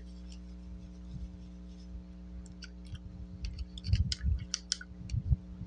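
Small clicks and soft taps of a paintbrush dabbing and mixing paint on a palette, gathering in the second half, over a steady low hum.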